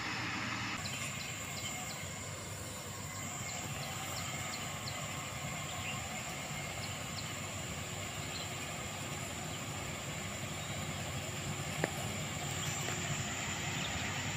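Diesel engine of a motor grader running steadily at a distance as it works a dirt road. A steady high whine comes in about a second in, and there is one sharp click near the end.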